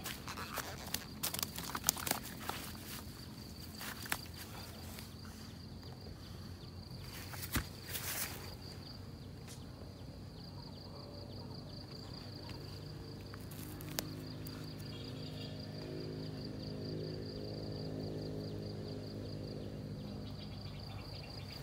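Steady high insect trill, with scattered thuds and rustles in the first few seconds as a freshly caught catfish flops on the grass. A low hum swells in during the second half.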